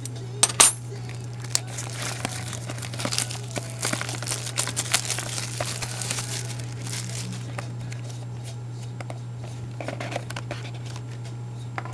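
Plastic wrapping on a trading-card box being crinkled and torn open, with a couple of sharp clicks at first and the densest crinkling in the middle. A steady low electrical hum runs underneath.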